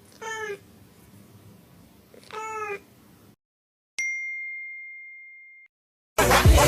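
A cat meows twice, each meow short. A few seconds in, a single bright ding rings out and fades away over about a second and a half.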